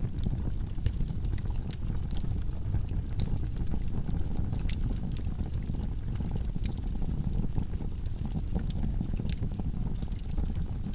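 Wood logs burning in a fireplace: a steady low rumble of the flames with frequent sharp crackles and pops.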